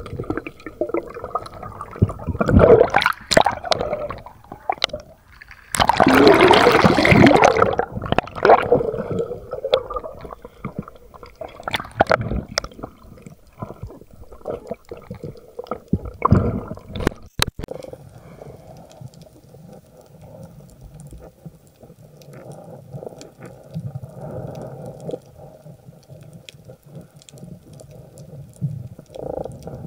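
Seawater sloshing and bubbling, with two loud rushes of water in the first several seconds and scattered sharp clicks, settling into a quieter steady murmur for the second half.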